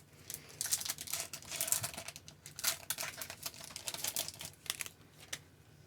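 Trading cards handled by hand: irregular rustling, sliding and light clicking as cards are shuffled through and moved about, sometimes with a wrapper crinkling.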